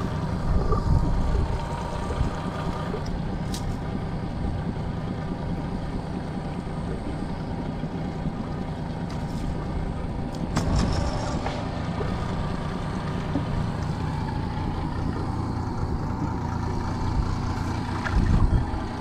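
Boat motor running steadily at low speed, a constant low rumble, with a few light clicks and a heavier low knock near the end.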